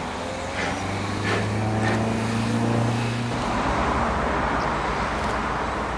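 Small steam tank locomotive drifting slowly towards the listener: a few soft exhaust puffs and a steady low drone for about two and a half seconds, then a steady rush of steam and running noise from about halfway in.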